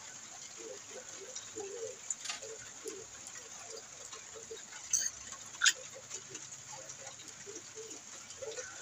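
Hand tools clinking on the metal of a machine's engine bay, a few sharp clinks with the loudest about five and a half seconds in, over a steady outdoor hiss with faint, broken-up voices in the background. The engine itself is not running.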